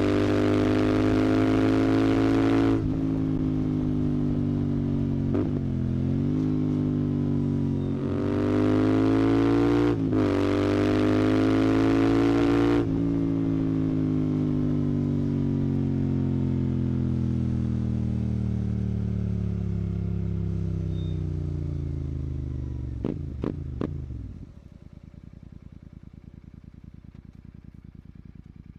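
Royal Enfield Continental GT 650's parallel-twin engine through a Red Rooster aftermarket exhaust, accelerating hard with a brief dip in pitch at a gear change, then pulling up again. It then rolls off the throttle into a long deceleration with steadily falling pitch. A few sharp clicks come near the end, and then the engine note stops and only a faint hiss remains.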